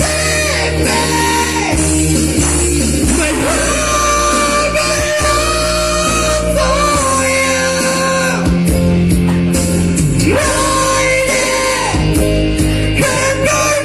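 Rock song with a singer holding long notes over a full band, and a sliding vocal note about ten seconds in.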